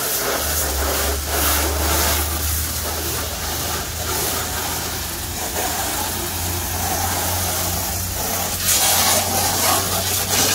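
High-pressure water jet hissing against a car's wheel, lower body and the wet ground, over the steady hum of an old three-piston pressure-washer pump running non-stop. The spray grows louder about nine seconds in.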